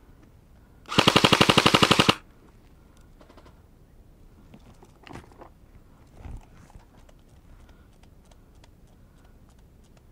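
Airsoft rifle firing one rapid full-auto burst of just over a second, the shots close and loud.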